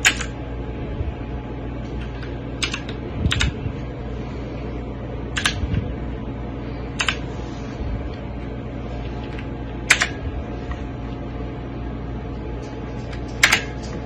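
Motospeed CK82 mechanical keyboard keys pressed one at a time, a handful of sharp single clicks spaced a second or more apart rather than continuous typing, over a steady low hum.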